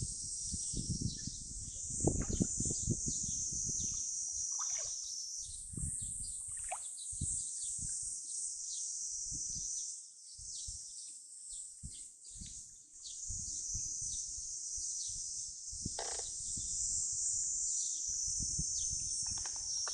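Waterside ambience: a steady high-pitched insect chorus with short bird chirps over it, and an irregular low rumble that comes and goes.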